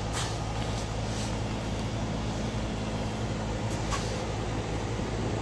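Steady low machine hum from outdoor machinery, with faint clicks just after the start and again about four seconds in.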